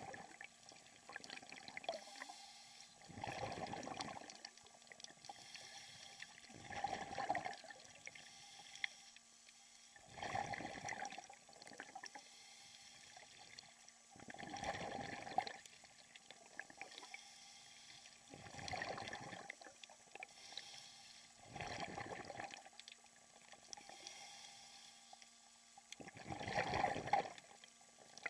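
Scuba diver's exhaled bubbles rushing up from the regulator in regular bursts, one about every three and a half to four seconds, with a faint steady hum underneath.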